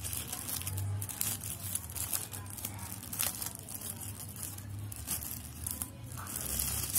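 Thin plastic bag crinkling in irregular crackles as it is handled and unwrapped from around a pair of earphones, over a steady low hum.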